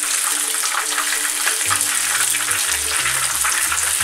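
Panko-breaded, battered salt cod frying in hot oil: a dense, steady crackling sizzle.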